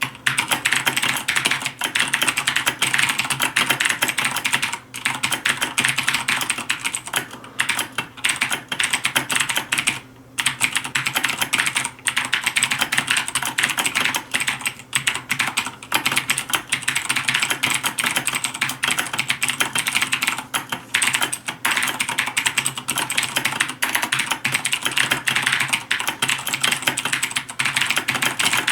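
Fast continuous typing on a Razer BlackWidow Ultimate 2013 mechanical keyboard with Cherry MX Blue switches, a dense stream of sharp clicks with keys pressed fully down, broken by a few brief pauses.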